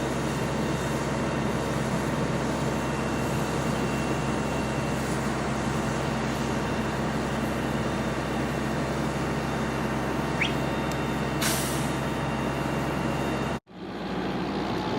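Fire truck engine running steadily with a constant low hum, a brief hiss about eleven seconds in, then an abrupt cut near the end.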